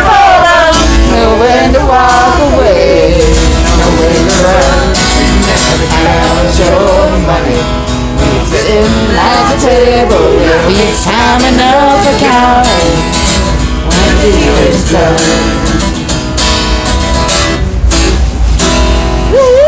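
Live country song on a strummed acoustic guitar, with a man singing. A steady low rumble from the moving train car runs underneath.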